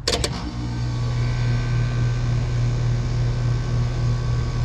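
Old Rheem R-22 heat pump starting on a jumped compressor call: a couple of sharp clicks as the contactor pulls in, then the compressor and outdoor fan running with a steady hum, showing the cooling/compressor circuit works.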